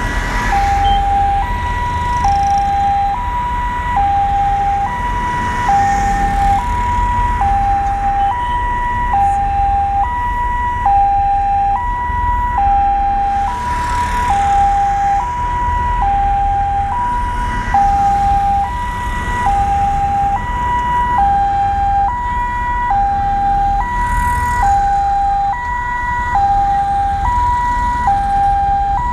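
Vehicle siren sounding a steady two-tone hi-lo wail, switching back and forth between a higher and a lower note about once every second, over a low rumble of road and engine noise from a moving vehicle.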